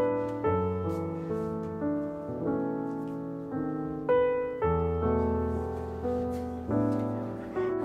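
Background solo piano music: notes and chords struck about twice a second, each left to fade.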